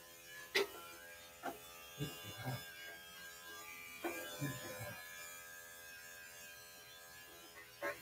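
Electric dog grooming clippers running with a steady buzz, broken by several short knocks and bumps, the sharpest about half a second in.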